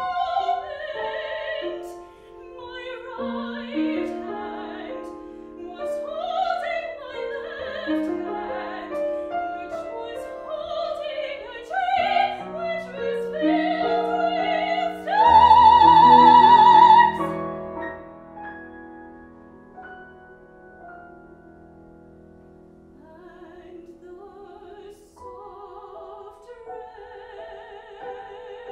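A woman sings in a classical operatic style with vibrato, accompanied by a grand piano. About fifteen seconds in she holds a loud high note. The piano then carries on alone for several seconds before she comes back in more softly.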